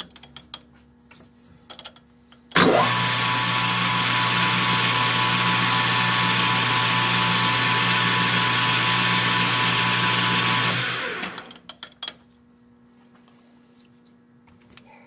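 Metal lathe switched on, its motor and spindle running at a steady speed for about eight seconds while a drill in the tailstock chuck is fed into the end of a 3/16-inch rivet held in a collet, then switched off and spinning down. A few light handling clicks come before and after.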